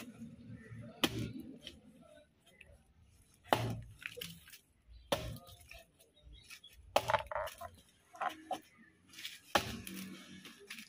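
A kitchen knife chopping on a board: about five sharp, separate strokes, spaced unevenly a second or two apart.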